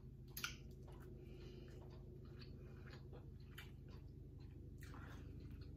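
Faint chewing and mouth sounds of a person eating, with a few soft clicks, over a low steady hum.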